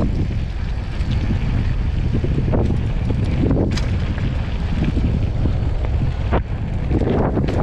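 Wind buffeting the microphone of a mountain bike descending at speed, over tyre rumble on the track and dirt road, with a few sharp knocks from the bike.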